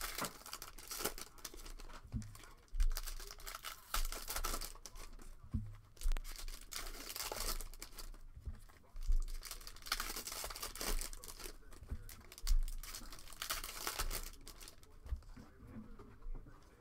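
Foil trading-card pack wrappers (Panini Prizm hobby packs) torn open and crinkled by hand in repeated bursts, with occasional low thumps as the packs and cards are handled.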